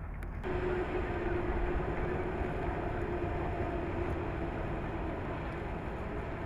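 Dragline excavator working: a steady mechanical drone with a whine that sags slightly in pitch, starting abruptly about half a second in.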